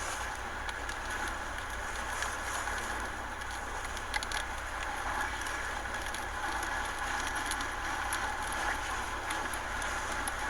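Hurricane wind and rain: a steady rushing noise with a low rumble of wind buffeting the microphone and scattered sharp ticks throughout.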